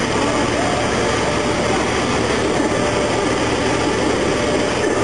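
Steady, loud mechanical noise of dry-dock machinery, unbroken throughout, with faint wavering higher tones over it.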